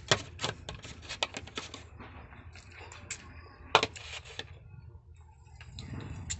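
A quick run of light clicks and taps, with one sharper click near the middle, from a plastic water bottle, a plastic rice tub and tableware being handled close to the microphone.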